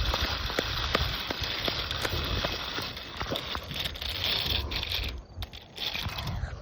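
Walking sounds: footsteps with many small irregular clicks and crackles over a steady rustling noise, dropping quieter about five seconds in.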